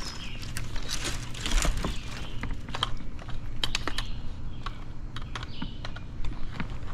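Irregular sharp clicks and crackles from a tree climber moving among the dry, dead branches of a maple, several a second with no steady rhythm.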